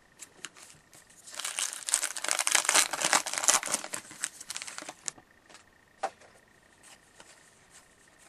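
The wrapper of a 2013-14 O-Pee-Chee hockey card pack being torn open and crinkled by hand for about four seconds, followed by a few faint taps as the cards are handled.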